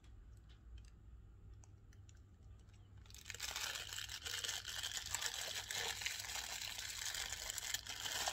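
Clear plastic wrapping around a wristwatch being handled, a few faint clicks at first, then loud continuous crinkling from about three seconds in as the bag is worked off the watch.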